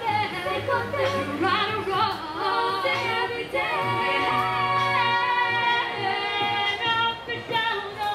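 A cappella vocal group of women and men singing in harmony into microphones, holding chords over a low sung bass line.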